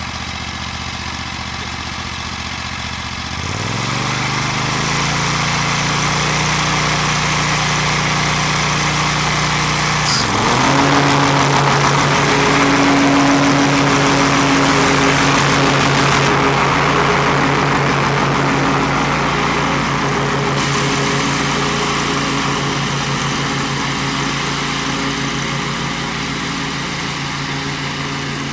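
Bad Boy Rambler 42-inch zero-turn mower engine idling, then throttled up to a higher steady speed about three and a half seconds in. About ten seconds in, the engine note dips briefly and recovers, and from then on it runs louder with a rushing noise over the hum.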